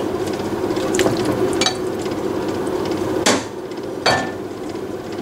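Fried salt-cod pieces tipped off a ceramic plate into a glass baking dish, with four sharp knocks of the plate and spatula against the dish, the last two the loudest, over a steady hum.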